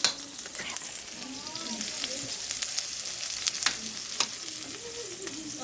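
Zucchini frying in a pan, a steady sizzle with crackling and a few sharp pops or clicks.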